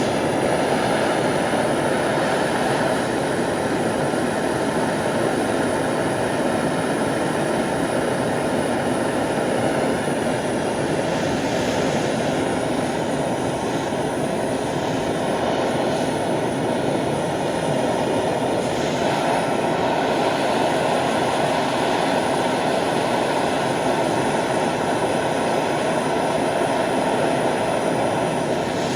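Handheld gas torch burning with a steady rushing roar, heating thin 16-gauge sheet steel to red heat.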